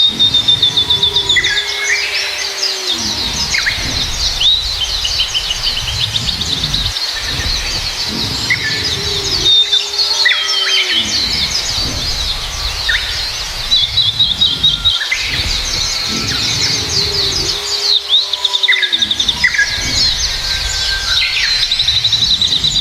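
Birdsong: many small birds chirping and trilling rapidly and continuously, with some lower whistled notes. The same run of calls comes round again about every eight seconds.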